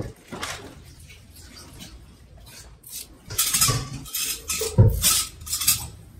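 Kitchen dishes and utensils clinking and knocking as ingredients for a chutney are handled and added. Quiet at first, then a run of clatters in the second half, the loudest about five seconds in.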